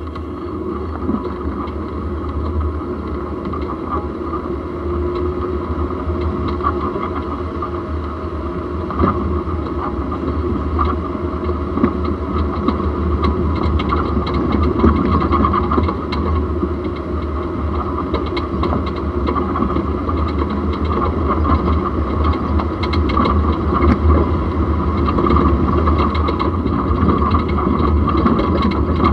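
Jeep driving, heard up close at the front axle: a steady rumble of tyres and running gear with frequent small knocks and rattles, getting gradually louder.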